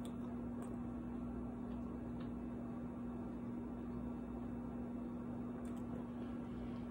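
Quiet room tone with a steady low electrical hum and a few faint ticks.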